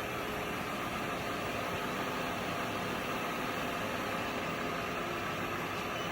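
Acer EVS-3VS CNC vertical milling machine running a program: spindle turning while the X and Y axes feed together, giving a steady mechanical hum with a few faint steady tones.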